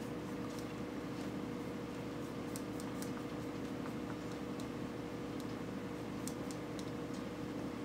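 Steady low hum of room noise with faint, scattered light ticks.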